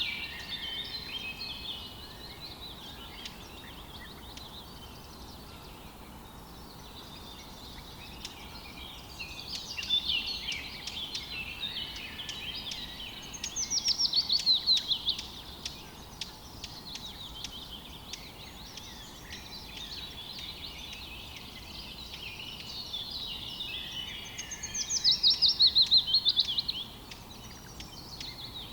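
Several songbirds chirping and singing. Twice, about halfway through and again near the end, one bird gives a loud quick run of short falling notes.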